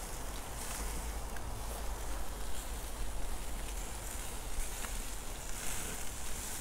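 Wind rumbling on the microphone over a steady hiss of chicken pieces sizzling on a charcoal grill, with a few light clicks of metal tongs on the grill grate as the pieces are turned.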